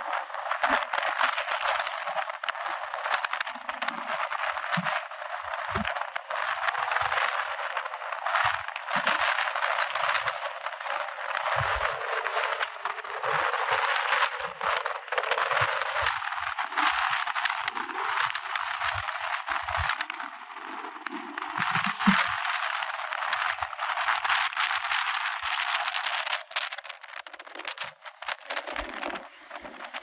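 Hurricane-force wind and heavy rain: a dense, steady rushing hiss, with scattered brief low thumps of gusts hitting the microphone.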